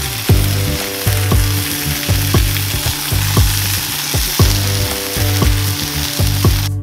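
Pancake batter and bacon strips sizzling on a hot Blackstone steel griddle, a dense steady hiss, over background music with a steady beat. The sizzle cuts off suddenly at the very end, leaving only the music.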